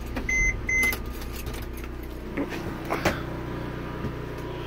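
Two short, high electronic beeps about half a second apart, then a few light clicks and knocks, over a steady low hum.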